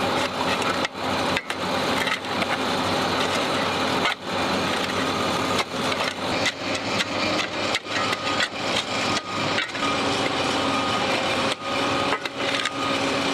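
Hydraulic breaker on a Cat M318D wheeled excavator hammering pavement in a rapid, rough rattle, with the excavator's diesel engine humming steadily underneath.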